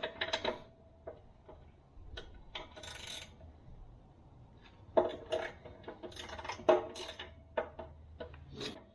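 Steel hand tools and the bucket pin hardware of a backhoe clinking and knocking, with a short metallic ring after the sharper clinks and a brief scrape of metal about two and a half seconds in. The clinks come in a scattered run, busiest past the middle.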